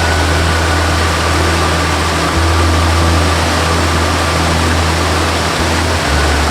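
Waterfall rushing steadily, with a slow melody of long held notes beneath it; the low notes change about every two to three seconds.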